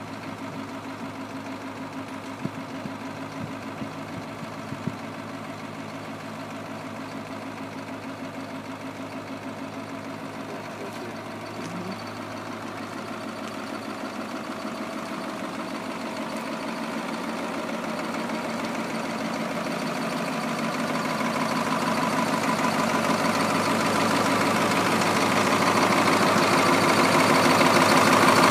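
Detroit Diesel 8.2-litre V8 of a 1998 Ottawa YT-30 yard spotter idling steadily with its cab tilted up, the engine exposed. It grows steadily louder through the second half.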